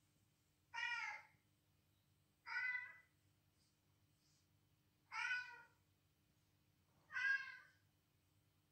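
Four short cat meows from a recording of cat calls being played, each about half a second long and evenly spaced about two seconds apart.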